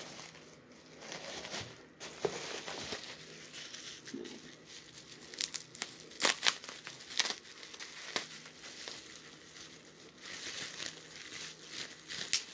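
Plastic bubble wrap crinkling and rustling in the hands as it is unwrapped from a small bottle, with a few sharp crackles about halfway through and near the end.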